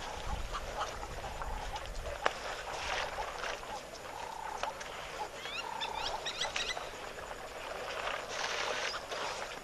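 Waterhole ambience with birds calling: short repeated calls and, a little past halfway, a quick run of rising chirps. Short bursts of hiss come and go, with a single sharp click about two seconds in and a low rumble in the first two seconds.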